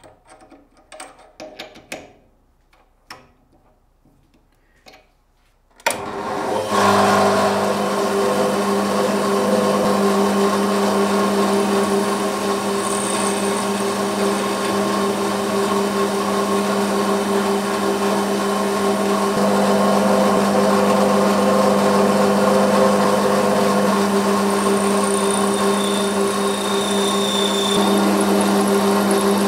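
A few light metal clinks as a rod is set in a lathe's three-jaw chuck, then about six seconds in the metal lathe starts and runs steadily with a constant hum while a carbide insert faces the end of the spinning rod.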